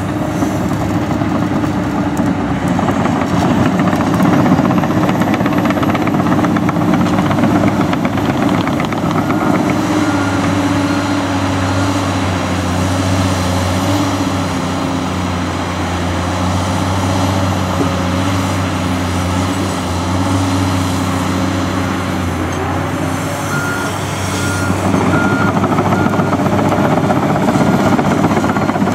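Komatsu PC228USLC excavator's diesel engine running under load, its pitch rising and falling as the hydraulics work the boom and bucket. A repeating beep sounds near the end.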